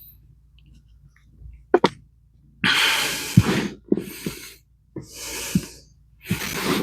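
Compost being tipped out of a potato pot and rummaged through by hand: four bursts of rustling, scraping noise, with a couple of sharp clicks just before the first.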